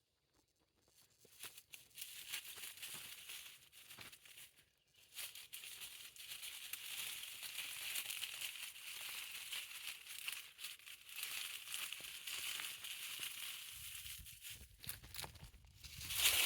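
Rustling and crackling in bushes, a dense run of small clicks and scratchy noise that begins about a second in and briefly drops away near the middle.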